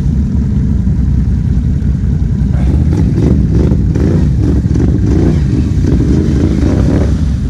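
ATV engine running hard under throttle, with the revs rising and falling as it drives through wet grass.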